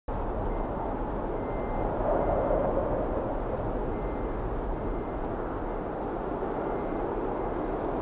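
A van driving on a wet road: steady road and wind noise with a low rumble, and a faint high beep repeating about once a second.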